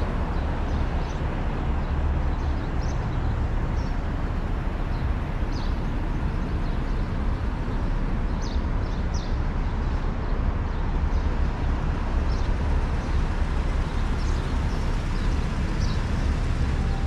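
Steady outdoor street ambience: a low rumble of road traffic and wind, with short high chirps scattered through it.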